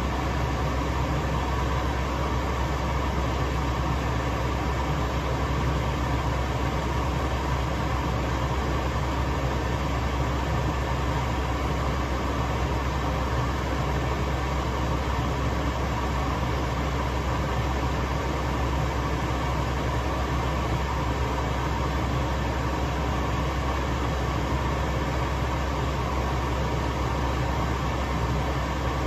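Steady, unbroken low hum and hiss of a gas stove burner running under a pot of simmering stew.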